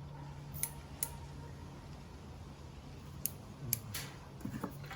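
A handful of short, sharp snips and clicks from wire strippers working on wiring, over a low steady hum.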